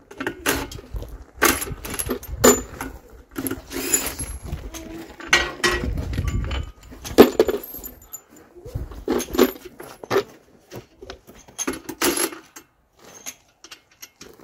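Irregular metallic clinks and clanks of wrenches, bolts and nuts being worked off the centre plate of a tractor wheel rim, some strikes ringing briefly. A low rumble about halfway through.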